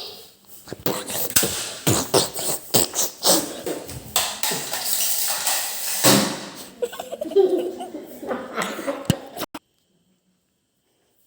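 People laughing and shouting over a rapid run of sharp clicks and knocks. The sound cuts off abruptly about nine and a half seconds in.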